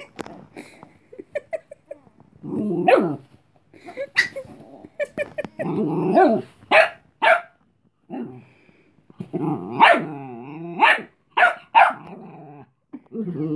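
Chihuahua puppy growling and yapping in repeated bursts, some short and sharp and some longer growls that waver in pitch, warning off a bigger dog that wants to play.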